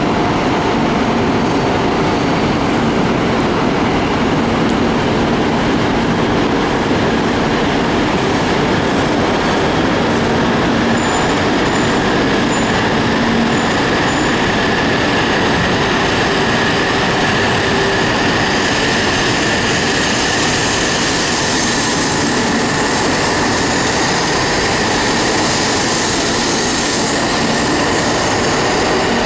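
E2 series 1000 Shinkansen, coupled to an E3 series set, starting out of the station and gathering speed past the platform. The loud, steady train noise takes on a higher whine from about halfway in as the cars roll by.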